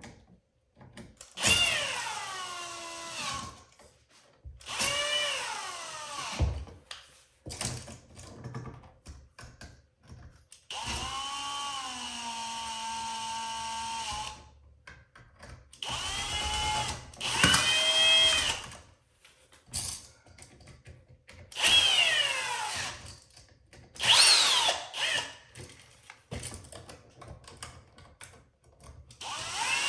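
A power drill running in about eight short bursts, its motor pitch falling as each burst winds down, with one longer steady run near the middle. It is backing out the screws holding the old light and exhaust fan switches in the wall box.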